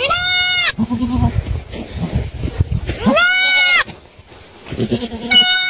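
Goat screaming three times, each loud cry rising then falling and lasting well under a second.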